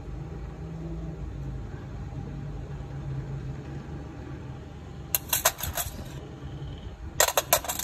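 Steady low background hum with two short flurries of rapid sharp clicks, one about five seconds in and one about seven seconds in.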